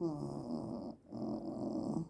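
A sleeping woman snoring: two snores in quick succession, each about a second long, the first starting on a falling pitch.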